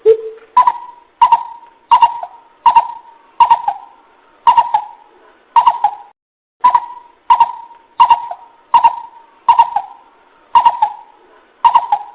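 Coucal (bubut) call played as a bird lure: a long series of repeated notes, about one and a half a second, with a lower note at the start and a brief pause about halfway through.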